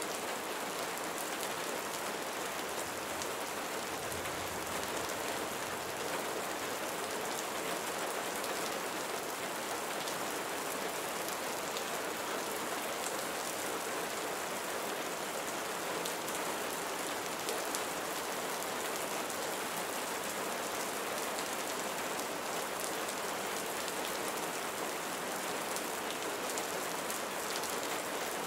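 Steady rain falling, an even, dense patter of many small drops that holds constant throughout.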